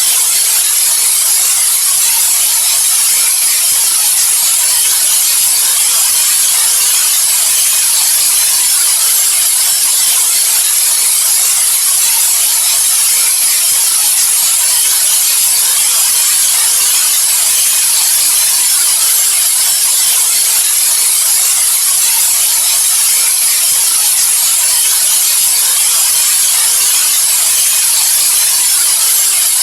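Steady white noise for sleep: a loud, even hiss that never changes, brightest in the high treble and thin in the bass.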